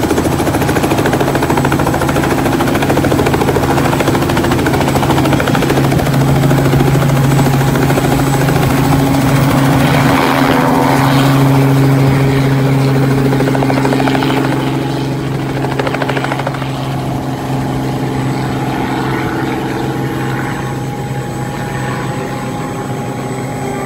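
Helicopter running steadily in flight: a constant low hum of engine and rotor, a little quieter after about fifteen seconds.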